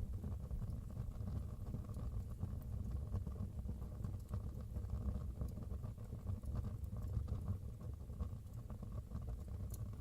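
Wood fire burning in a fireplace: a steady low rumble of the flames with sparse faint crackles and pops, one sharper pop near the end.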